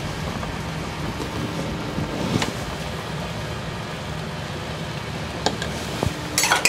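Chestnut mushroom broth boiling steadily in a stainless steel saucepan on an induction hob, a continuous bubbling hiss. A few light clicks and a brief clatter near the end, from the utensils against the pan.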